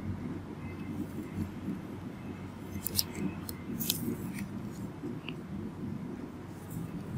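Low steady room hum, with a handful of small sharp clicks about three to five seconds in.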